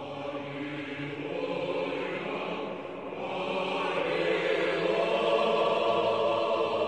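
Orthodox church choir chanting, holding long sustained chords, swelling louder about four seconds in.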